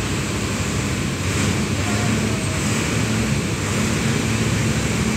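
Steady outdoor street noise, with the low hum of a vehicle engine that comes and goes.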